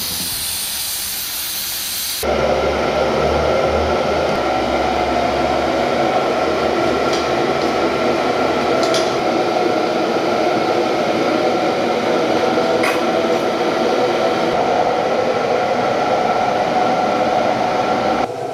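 Aerosol spray can hissing at the broomed end of a wire rope for about two seconds, then cutting off sharply. After that, a steady machine whir with a low hum carries on, with a few faint clinks.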